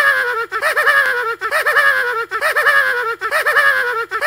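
A cartoon character giggling in a high, thin voice with no low end: quick rapid-fire syllables in runs that break a little under a second apart, the pitch sliding slowly downward.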